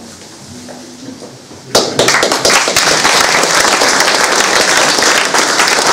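Audience applauding, breaking out suddenly a little under two seconds in and going on as steady, dense clapping.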